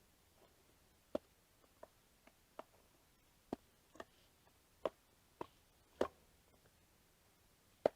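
Faint, irregular clicks and taps of flathead screwdrivers against a stroller wheel's rim and tire as the tire is pried over the rim, about ten in all.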